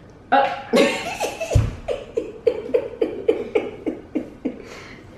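A woman laughing hard in a run of short, even bursts, about four a second, dying away near the end, with a low thump about one and a half seconds in.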